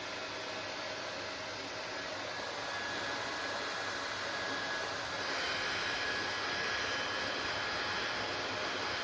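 Hair dryer running steadily: a constant rush of air with a faint whine, growing louder and hissier about five seconds in.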